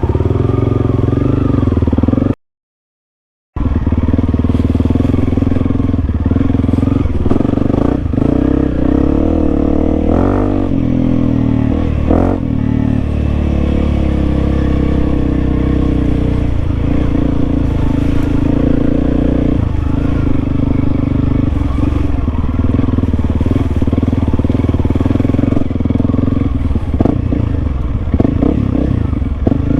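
Honda CRF300L dual-sport motorcycle's single-cylinder four-stroke engine running under way, the throttle swelling and easing, with clattering from the bike. The sound cuts out completely for about a second near the start.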